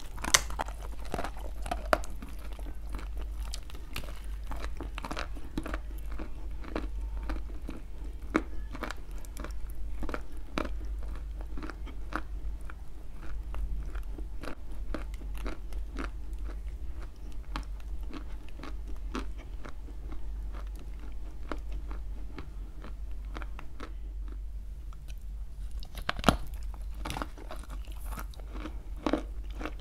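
A person chewing dry lumps of clay close to the microphone: a steady run of small crunches and crackles, with a sharp, louder bite near the start and another about 26 seconds in.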